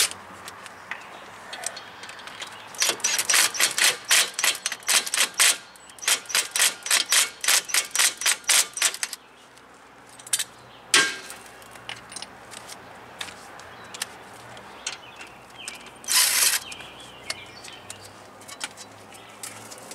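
Hand-tool work on a car's rear brake assembly: a run of sharp metallic clicks, about four a second for some six seconds, then a single knock and, near the end, a short clatter.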